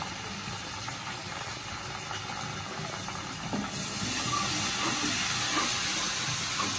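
Onions and spice paste frying in hot oil in a pan, a steady sizzling hiss that grows louder about four seconds in.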